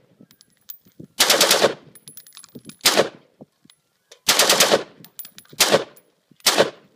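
AR-15 rifle bump-firing through a Slide Fire stock: five short bursts of very rapid shots, the longest about half a second, with gaps of about a second between them.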